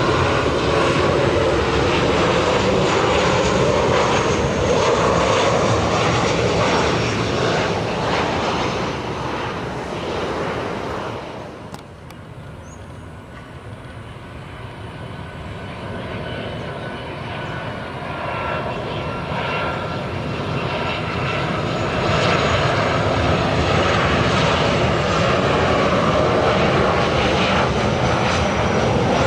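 CFM56-7B turbofan engines of low-flying Boeing 737 airliners on final approach, a 737-900ER and then a 737-800: a dense engine rumble with a steady whine. The first jet's sound fades away over the first dozen seconds; after a cut, the second jet's sound builds up and stays loud.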